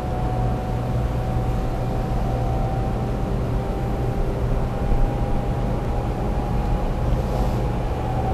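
Inside the cabin of a JR Series 300 Shinkansen running at speed: a steady low rumble with an even rushing noise over it, and a faint whine held near one pitch.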